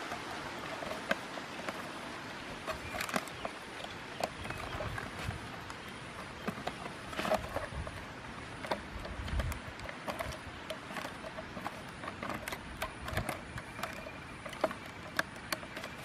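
Plastic bottle being handled and fitted onto a thin wooden stick: irregular small clicks and taps of plastic and wood throughout, over a faint steady outdoor background.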